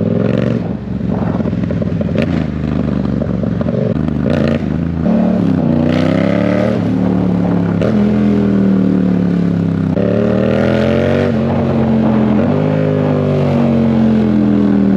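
Yamaha MT-07's parallel-twin engine with a loud exhaust, its note rising and dropping several times as the bike accelerates through the gears, with a few short pops and clicks along the way.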